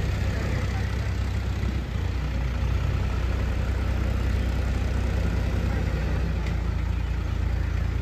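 Diesel engines of a JCB backhoe loader and a tractor running steadily with a deep low hum, dipping briefly a little under two seconds in and growing a little louder soon after.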